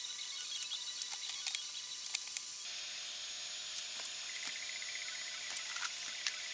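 Sausage, peppers and tomato sizzling in a lidded frying pan: a steady hiss with scattered small pops.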